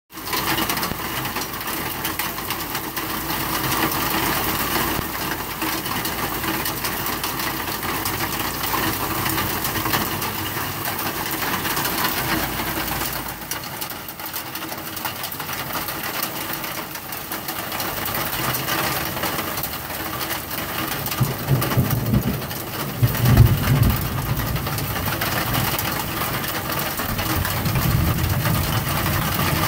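Hail and rain falling hard onto a wooden deck and the ground around it, a dense steady patter. A louder low rumble comes in about three-quarters of the way through.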